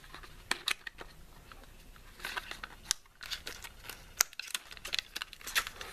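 A small cardboard replacement vape-coil box being opened by hand, with a scattering of light clicks, rustles and crinkles as the lid is lifted and the coil is taken out.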